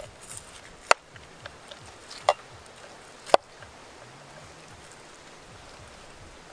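A large knife scoring raw pig ears on a wooden board: three sharp knocks of the blade striking the board, roughly a second apart, with a few faint cutting ticks between.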